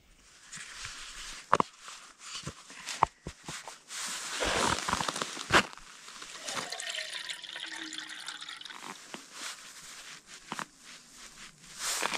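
Jetboil camp stove and its fuel canister being handled and set up: a string of sharp clicks and knocks of metal and plastic parts, with a rushing hiss loudest about four to five seconds in.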